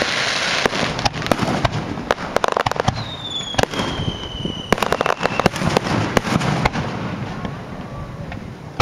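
Aerial fireworks bursting: a dense run of sharp bangs and crackling pops. About three seconds in, a high whistle glides slowly down in pitch for around two and a half seconds.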